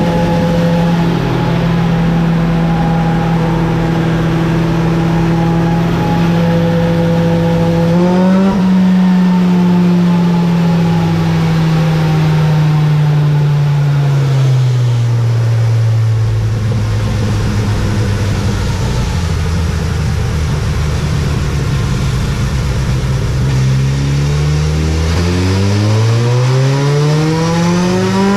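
2022 Suzuki Hayabusa's 1340 cc inline-four with a small aftermarket eBay exhaust, running on a dyno. It holds steady revs, blips slightly about eight seconds in, then slowly drops to a lower steady speed. Near the end the revs climb steadily as a pull begins.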